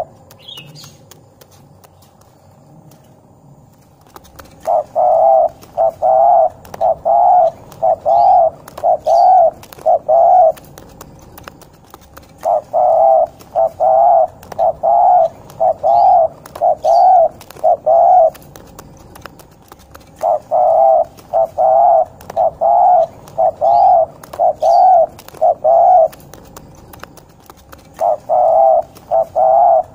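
A spotted dove (derkuku) cooing in the hoarse 'ngorok' style. It gives a rhythmic run of coos, about one every three-quarters of a second, in bouts of several seconds separated by short pauses. The first coos come about four seconds in.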